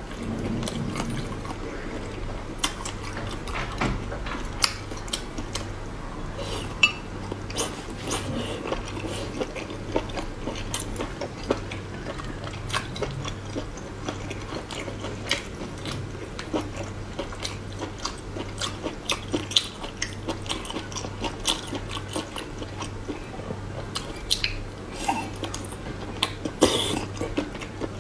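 Close-up eating of spicy squid: chewing with frequent, irregular sharp clicks and taps, as of utensils against a dish. A low steady hum sits underneath.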